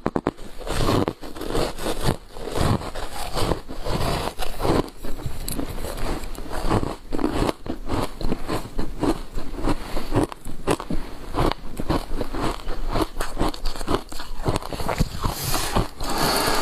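Close-up biting and crunching of matcha-powder ice: a rapid, irregular run of crisp crunches with chewing between them.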